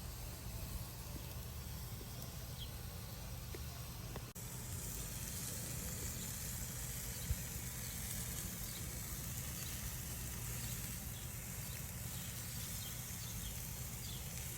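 Whole salmon sizzling on a grill: a steady hiss with faint small crackles, which changes abruptly about four seconds in and gets brighter.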